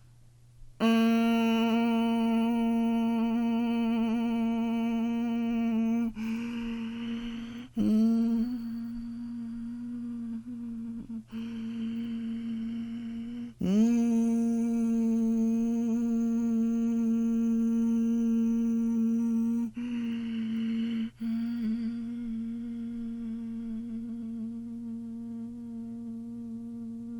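A person humming one long, steady low note in imitation of an emergency alert attention tone. The note breaks off briefly about six times for breaths in, scoops back up into pitch, and grows a little quieter near the end.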